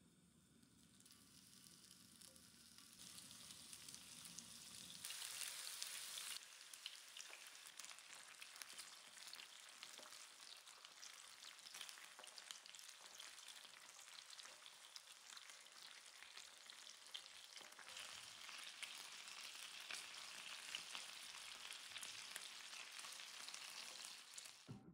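Minced-meat kofta frying in hot ghee in a grill pan, with a steady crackling sizzle. The sizzle builds over the first few seconds as more pieces go into the pan, then cuts off abruptly just before the end.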